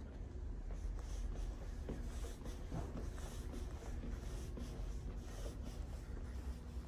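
Rustling from handling a handheld phone and soft footsteps of someone walking along a hard-floored corridor, over a steady low hum.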